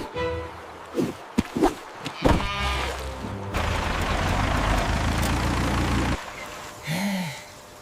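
Cartoon sound effects: several short farm-animal calls in the first couple of seconds, then a steady rumbling noise for a few seconds, ending with a short rising-then-falling tone.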